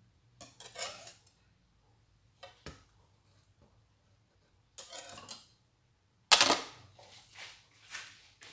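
Kitchen utensils and glassware clinking and scraping in several short bursts: a whisk in a bowl of custard and small glass dessert cups being handled. The sharpest knock comes about six seconds in.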